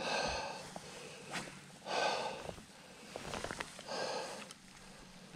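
A person breathing hard: three heavy breaths about two seconds apart, with a few light clicks between them.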